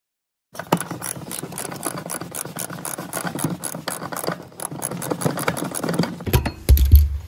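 Ratchet wrench clicking rapidly and steadily as it turns a seat-mounting bolt in the car's floor, with a raspy edge to the strokes. A few heavy low thumps near the end.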